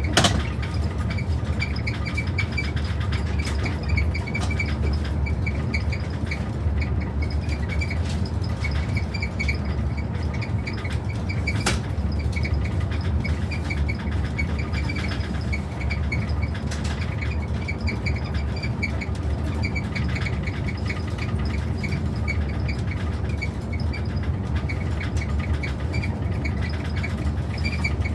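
Moving train: a steady low rumble with faint, intermittent high-pitched squeaks and an occasional sharp click.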